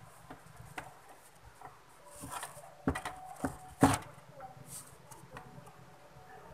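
Scattered light clicks and knocks of an amplifier's parts being handled as a circuit board is pressed back into place in the chassis and the metal case panel is moved. The loudest knock comes about four seconds in.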